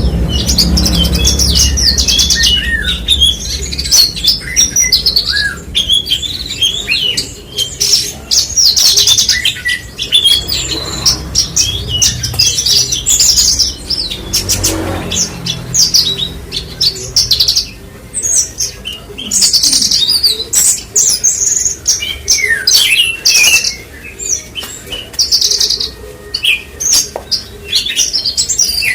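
Javan bush lark (branjangan) singing a long, rapid stream of short high chirps, trills and slurred whistles, broken by brief pauses.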